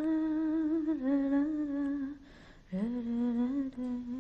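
A woman humming a slow tune in long held notes, with a short break about halfway through.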